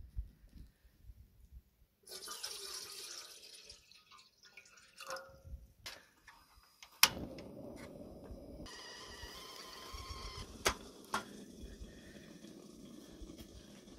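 Water running for about two seconds. About seven seconds in, a dual-fuel butane/propane portable camp stove lights with one sharp igniter click, and its burner then runs with a steady gas hiss under a stovetop kettle.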